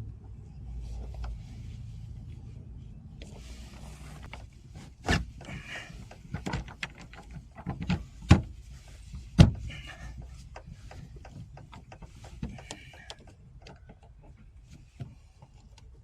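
Knocks, bangs and scraping on an aluminium jon boat's hull as a bolted-up rod holder part is dropped back in and shifted to line up its bolt holes, with a few short squeaks of metal rubbing. The two loudest knocks come about halfway through.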